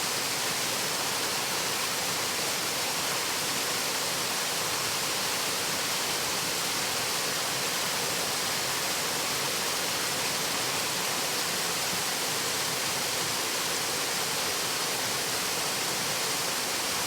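Waterfall: falling water rushing in a steady, unbroken hiss.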